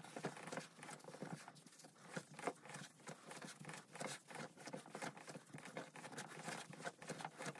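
Hands kneading a soft, sweet bread dough on a floured tabletop: faint, irregular soft pats and squishes as the dough is pushed and folded.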